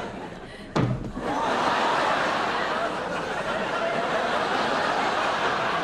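A sharp thud about a second in, followed by a studio audience laughing steadily.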